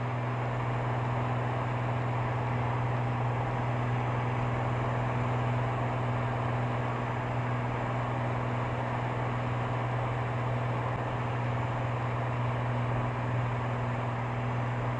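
Cirrus SR22's six-cylinder piston engine and propeller droning steadily in cruise, heard from inside the cockpit.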